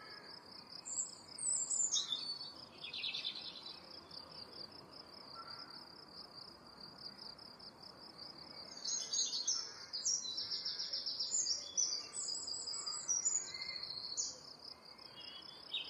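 Nature ambience: an insect, likely a cricket, trills steadily and without a break, while birds chirp in short, stepped high notes, briefly near the start and then through a busier stretch in the second half.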